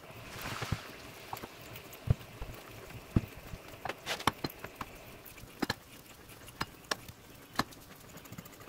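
Hand tap threading a bored hole in a steel part held in a lathe chuck: scattered sharp metallic clicks, roughly one a second, as the tap is turned and cuts.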